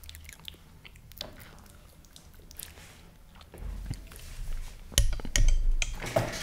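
Close-miked mouth clicks and chewing, then, from about three and a half seconds in, rumbling knocks and rustling right at the microphone, with the loudest knock about five seconds in.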